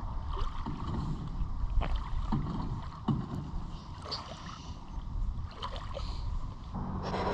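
Wind rumbling on the microphone, with a faint steady hum and a few faint clicks.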